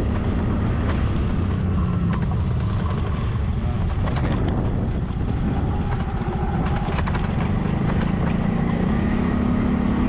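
Motor scooter running steadily along the road: a continuous low engine drone mixed with wind rushing over the microphone.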